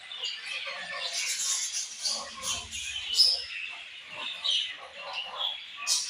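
A group of budgerigars chirping and chattering, many short calls overlapping without a break.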